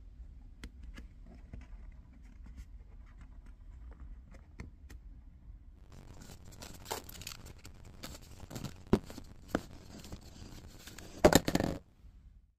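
Paper wrapping being scratched at, then torn and peeled off a cardboard tube, with crinkling and a loud half-second rip near the end.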